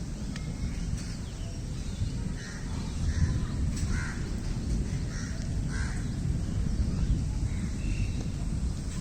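Heavy rain with a steady low rumble, and birds calling over and over from about two seconds in.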